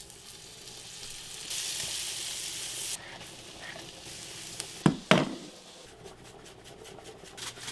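Butter and minced garlic sizzling in a stainless steel frying pan, with a louder burst of sizzle lasting about a second and a half. Two sharp knocks come about five seconds in.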